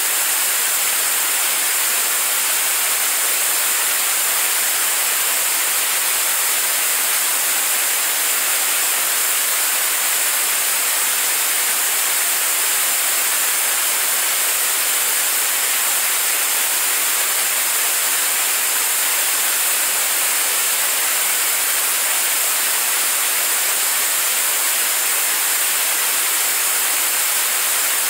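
Liquid-propellant staged-combustion rocket engine firing on a test stand, its exhaust making a loud, steady rushing noise that holds even throughout. This is steady-state running partway through a 600-second full-duration test firing.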